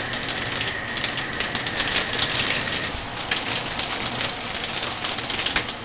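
Shower spray running steadily, water pattering on a person and the stall floor as a continuous hiss with small splashes. A faint steady high tone sounds under it and stops about three seconds in.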